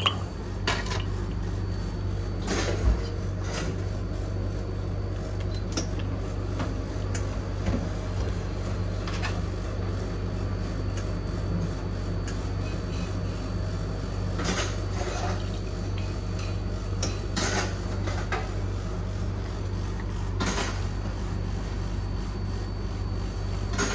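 Ice cubes and metal tongs clinking against a ceramic mug, with scattered clinks and clatter of crockery over a steady low machine hum.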